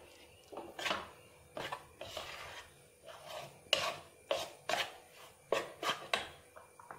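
A steel spoon scraping and stirring through damp rice flour in a bowl, about a dozen short scraping strokes at an uneven pace, as hot water and coconut milk are worked into the flour for dough.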